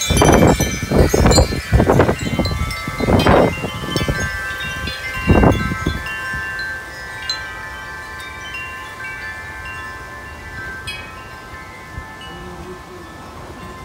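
Large tubular wind chime clanging and ringing in strong storm gusts, its tubes struck again and again so that several tones overlap. Wind buffets the microphone in heavy gusts for the first six seconds or so; after that the gusts ease and the chime tones ring on more softly.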